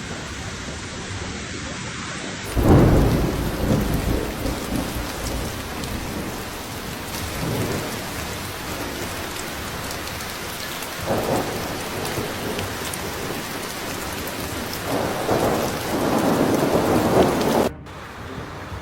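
Heavy rain pouring steadily with several low rumbles of thunder. The loudest comes about two and a half seconds in, a shorter one follows near the middle, and a long one near the end cuts off suddenly.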